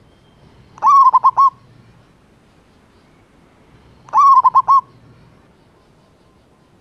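Zebra dove cooing: two short calls about three seconds apart, each a quick run of about five staccato notes.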